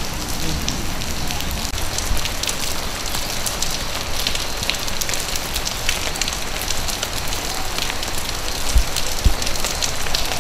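Steady rain pattering, with many small drops ticking; two soft low thumps near the end.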